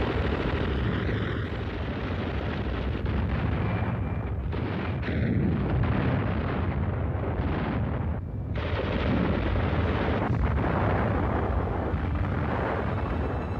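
A continuous din of battle: gunfire and explosions over a heavy low rumble, with brief lulls now and then.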